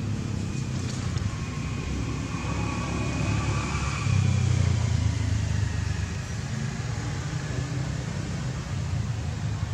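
Low, steady engine rumble, like a motor vehicle running nearby, swelling about four seconds in and easing off again.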